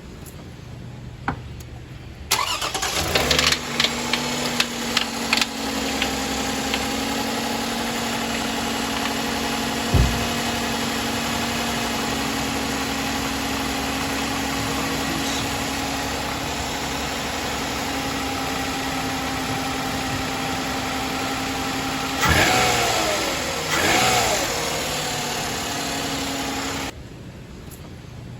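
Toyota 3.5-litre V6 cranking and catching about two seconds in, with sharp knocking and rattling for the first few seconds after start. It then idles steadily, is blipped twice near the end, and is switched off. The owner puts the knock down to the VVT-i cam sprocket.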